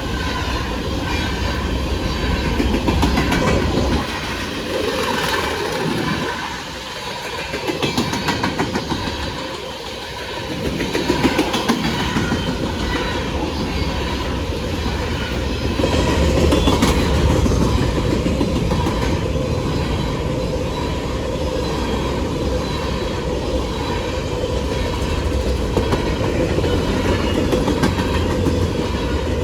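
Norfolk Southern freight train rolling past, its cars' steel wheels clacking rhythmically over the rail joints under a steady rumble.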